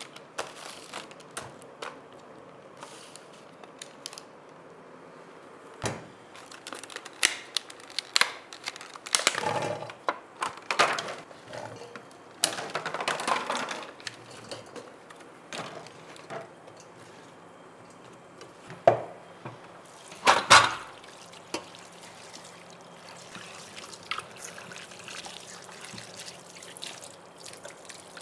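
Kitchen food preparation: scattered knocks and clinks of utensils and dishes, with short spells of liquid pouring and splashing. The loudest knocks come about two-thirds of the way through.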